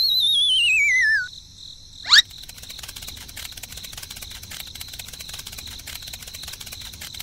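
Cartoon sound effects: a high whistle sliding down in pitch with a fast wobble for about a second, then a quick rising swoosh about two seconds in, over steady cricket chirping.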